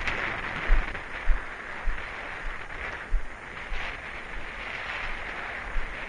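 Wind blowing across the camera microphone: a steady rushing hiss with irregular low buffeting thumps, strongest in the first two seconds.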